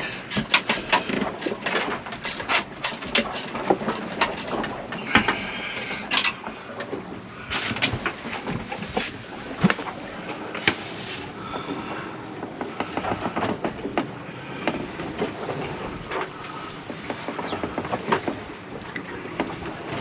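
Irregular clattering: many quick clicks and knocks of hard objects, with rattling, coming thickly at first and more sparsely later.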